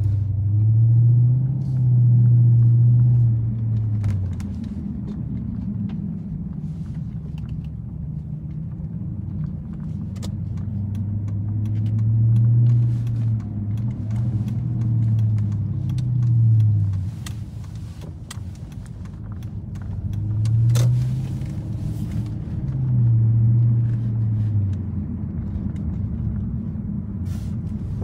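Toyota Celsior's V8 engine running through an aftermarket Three Cats muffler, heard from inside the cabin while driving: a low exhaust drone over a steady road rumble. The drone swells and rises in pitch several times as the car accelerates, then eases off in between.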